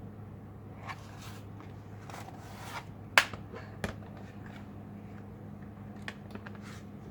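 Small clicks and brief scrapes from the plastic casing and parts of an HP 15-R029WM laptop being handled during disassembly, with one sharp click a little over three seconds in and a few light ticks near the end, over a steady low electrical hum.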